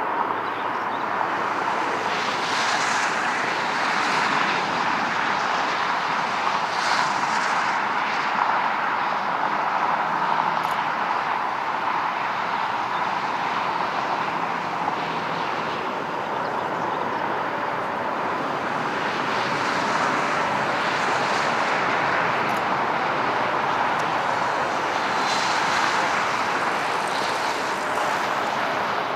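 Boeing 777 freighter's twin GE90 turbofan engines on final approach, a steady jet roar.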